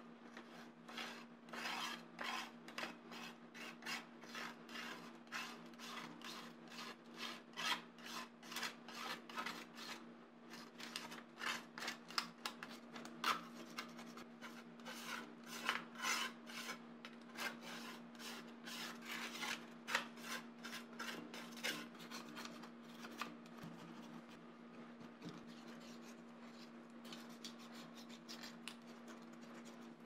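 A scraper rasping thick corrosion crust off an old ceiling fan blade in quick repeated strokes, about three a second, growing fainter and sparser in the last third. A steady low hum runs underneath.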